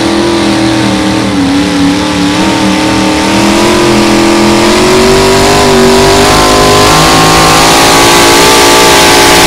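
Mini modified pulling tractor's engine running at high revs under full load as it drags the weight sled, its pitch wavering and creeping upward. It grows louder and heavier about halfway through.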